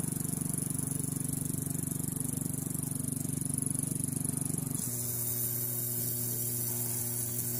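Insignia LCD TV's power-supply board buzzing with a rapid flutter and a high hiss on top; about five seconds in it settles into a steadier, lower hum. The noise sounds scary, and the owner puts it down to a failing filter capacitor on the board, with burn marks nearby.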